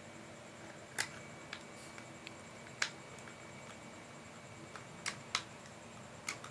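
Small parts being handled on a workbench: about five sharp, short clicks and taps at irregular intervals, with a few fainter ones, over a faint steady hiss.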